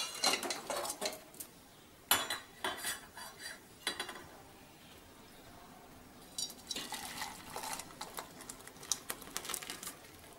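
Metal clanks and scrapes: an aluminium pot is gripped with pot tongs and tipped against a steel bowl. There is a sharp clank at the start, then bursts of clattering in three spells.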